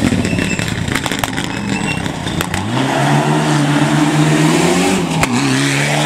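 Mitsubishi Lancer Evolution X rally car's turbocharged four-cylinder engine under hard acceleration as it passes and pulls away, with a steady strong engine note from about two and a half seconds in and a short dip for a gear change near the end. A few sharp cracks sound about a second in.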